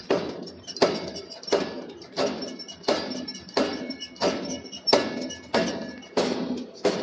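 Steady, evenly spaced forging hammer blows on steel, about three every two seconds, each a sharp strike with a short metallic ring.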